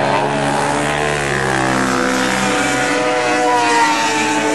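Racing quad (ATV) engines running hard, their notes rising and falling in pitch as the riders rev and shift, with a second engine's note climbing near the end.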